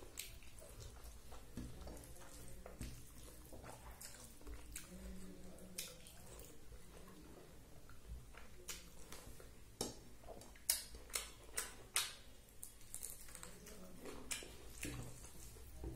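Faint chewing and wet mouth noises of someone eating rice by hand, picked up on a clip-on microphone, with scattered soft clicks and a run of sharper smacking clicks about ten to thirteen seconds in.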